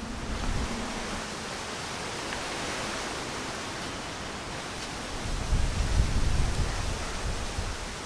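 Strong wind blowing through a leafy tree canopy: a steady rustling hiss of leaves. About five seconds in, a gust buffets the microphone with a low rumble that lasts a couple of seconds.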